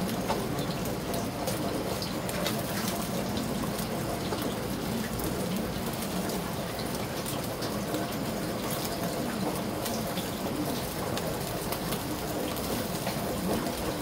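Eel fillets sizzling on a wire grill over hot charcoal: a steady hiss with many small crackles.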